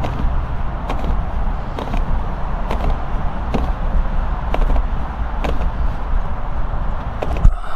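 A car jack being worked to press a scooter tire's bead off its rim: evenly spaced clicks about once a second over a steady low rumble, with a louder knock near the end.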